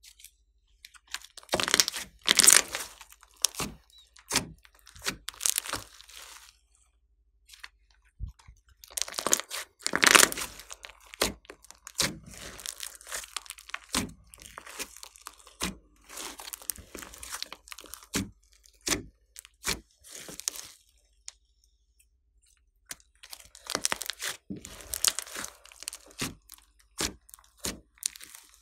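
Slime being squeezed, stretched and kneaded by hand, crackling and popping in irregular bursts with short pauses between them.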